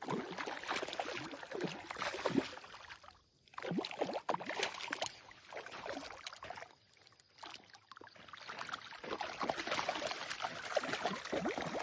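Irregular splashing and sloshing of pond water, close to the microphone, easing off briefly about three seconds in and again about seven seconds in.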